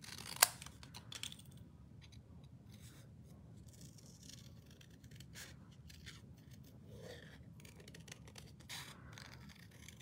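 Small scissors fussy-cutting around a stamped image in paper: quiet, irregular snips, with one sharper click about half a second in.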